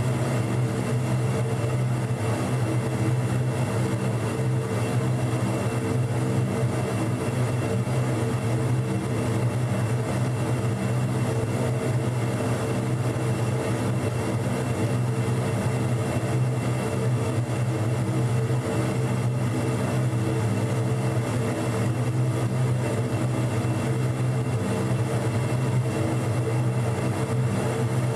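Large ducted fan on an evaporative water-recovery test rig running steadily: an even drone with a strong low hum and fainter steady tones above it.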